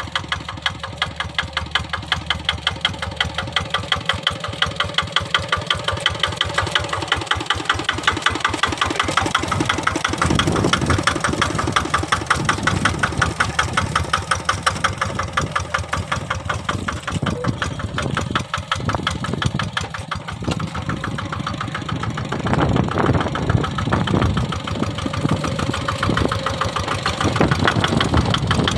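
Kubota RD 65 DI-1S single-cylinder diesel engine of a Quick Impala hand tractor running under load while plowing a muddy rice paddy, with a rapid, even pulse of firing strokes. It grows louder over the first ten seconds or so as the machine comes close.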